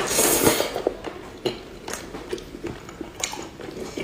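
Close-miked eating of fried pork belly: a loud burst of crackling bites in the first second, then scattered small chewing clicks and taps.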